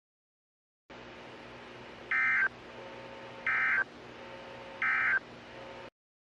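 Three short Emergency Alert System (SAME) end-of-message data bursts, each under half a second and about 1.4 s apart, over a steady hum and hiss that starts about a second in and cuts off near the end.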